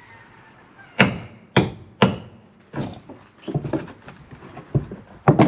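Hammer blows on wooden porch framing, used to knock out a board that will not pry loose. Three hard strikes come about half a second apart about a second in, followed by lighter knocks and another loud flurry near the end.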